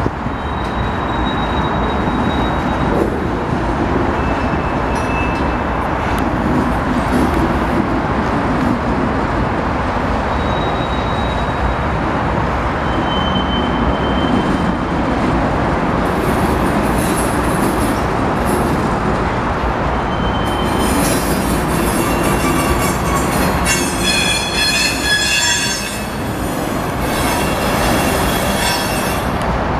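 Union Pacific freight train's cars rolling past with a steady rumble and squealing wheels: a few short high squeals at first, then several overlapping squeals through the second half.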